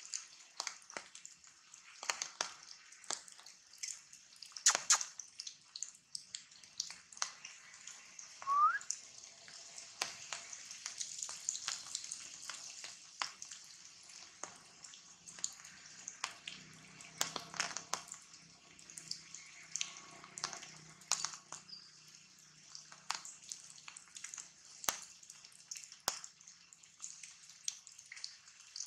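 Rain dripping on forest leaves: irregular drops and ticks over a steady hiss. A short rising chirp comes about eight seconds in, and a faint low hum runs for a few seconds past the middle.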